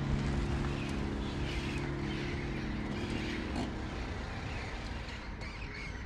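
Low engine rumble of a vehicle arriving, under a held music chord that fades out about three and a half seconds in, with faint high chirps above.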